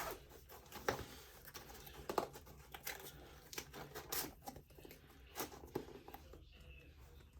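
Faint crinkling and rustling of plastic-wrapped kit packaging being handled, with a few light taps and clicks spread through.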